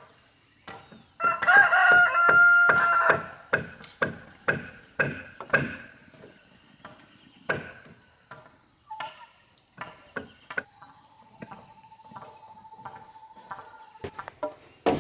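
A rooster crows once, loud, about a second in, over a run of sharp knocks about twice a second, like wood being struck. A faint high steady tone lies underneath, and a steadier mid-pitched tone sounds from about ten to fourteen seconds in.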